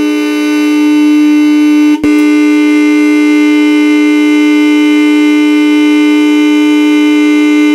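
Chrome Delco Remy rat rod horn sounding continuously in one loud, steady tone, with a split-second break about two seconds in.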